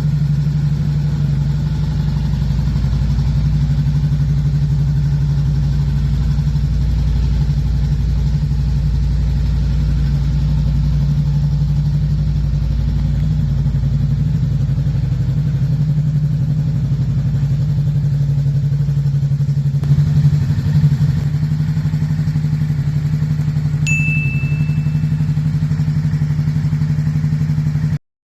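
Honda Rebel 500's parallel-twin engine idling steadily through a slash-cut slip-on exhaust, with a short throttle blip about twenty seconds in.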